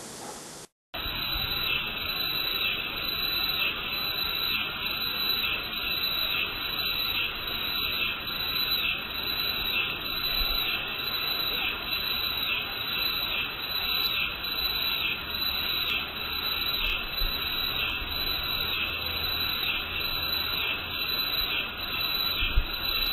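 A dense chorus of high, pulsing animal calls, repeating about twice a second. It starts abruptly, just under a second in, after a moment of steady hiss.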